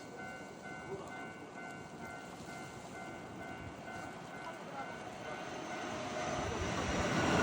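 Japanese level-crossing warning bell dinging steadily over and over, while an approaching Keihan train grows louder near the end.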